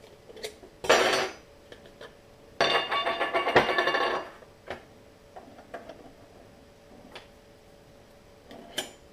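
Thin tin-can parts of a small camping stove being handled on a bench: a short metallic scrape about a second in, then a longer rattling metal-on-metal scrape lasting about a second and a half, with a few light clicks.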